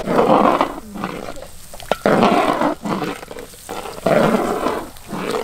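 A metal spatula scraping and stirring frying curry paste around a large iron wok. Three rough strokes come about two seconds apart.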